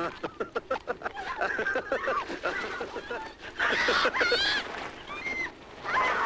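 A girl crying out in distress as she is dragged by a rope: a quick run of short, gasping sobs, then a string of high, wavering cries and yelps, the loudest around four seconds in.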